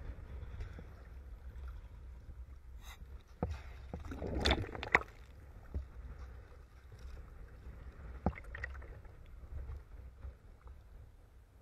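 Sea water sloshing and splashing around a camera held at the surface, over a steady low rumble, with a few sharp knocks. The loudest part is a cluster of splashes about four to five seconds in.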